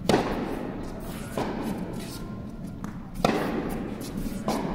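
Tennis ball struck by a racket on forehands: two sharp pops, one right at the start and one about three seconds in, with fainter pops of the ball from the far side of the court in between and near the end, each echoing in a large indoor hall.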